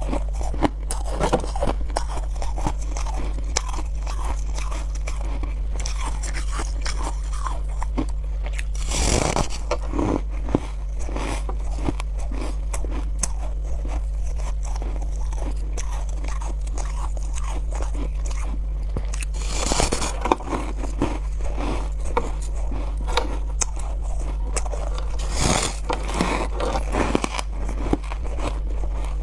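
A person biting and chewing chunks of freezer frost ice close to the microphone: steady crackly crunching, with three louder bites spread through. A low steady hum runs underneath.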